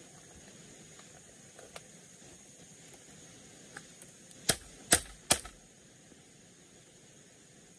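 Machete striking bamboo poles: three sharp, hard strikes in quick succession, about 0.4 seconds apart, a little past halfway, over a faint steady hiss.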